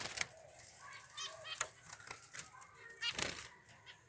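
Caged finches chirping in short, high calls, among scattered clicks and rustles.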